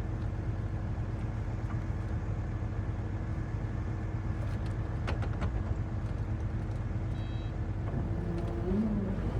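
Kubota SVL95-2S compact track loader's four-cylinder turbo diesel engine running steadily, with a few faint clicks about five seconds in and a short rising whine near the end.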